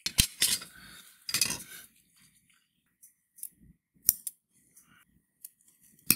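Plastic guiding tape being handled, with crinkly rustling and sharp clicks in the first two seconds. Then come single snips and clicks of steel scissors cutting the tape strip, with a quick run of sharp clicks near the end.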